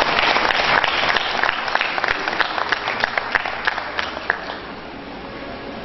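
Audience applauding, the clapping thinning to a few scattered claps and dying away about four and a half seconds in.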